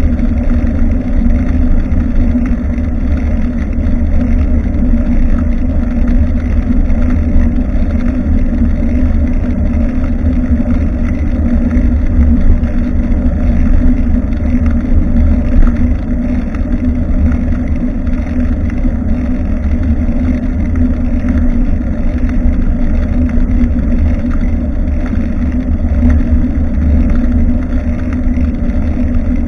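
Steady wind buffeting and road rumble on a bicycle-mounted action camera's microphone while riding, loud and heavy in the low end without a break.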